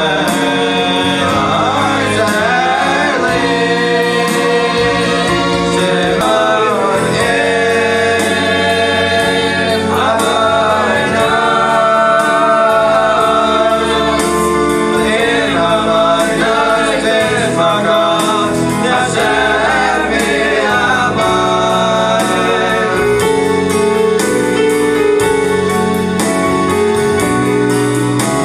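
A group of young male voices singing a song together in harmony through microphones, accompanied by an electronic keyboard with a steady bass line.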